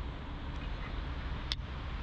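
Steady outdoor background rumble, with a single sharp click about one and a half seconds in.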